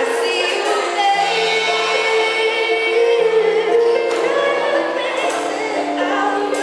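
A live band playing a song, with voices singing over held notes and a moving bass line.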